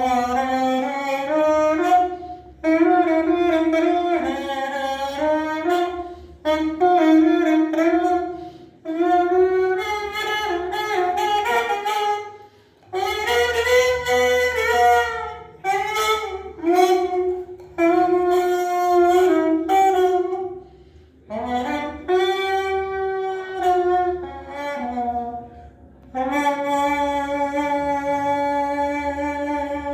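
Homemade horn made from a PET plastic bottle playing a melody in short phrases with brief breaks between them, with a reedy, saxophone-like tone, ending on a long held note.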